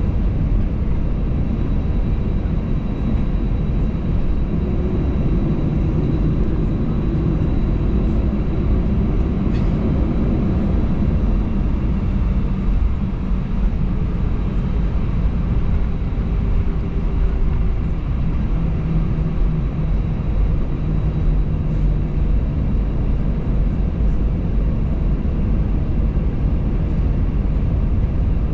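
Cabin noise inside an Airbus A320 taxiing: a steady low rumble with the hum of the jet engines at taxi power and a faint high whine.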